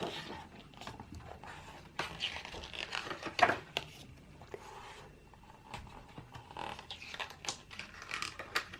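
Paper and card album inserts being handled: irregular rustling and scraping with scattered light clicks, a few louder scrapes about two to three and a half seconds in.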